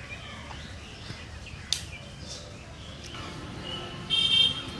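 Outdoor ambience with birds chirping faintly, a single sharp click a little under two seconds in, and a louder, short high-pitched bird call near the end.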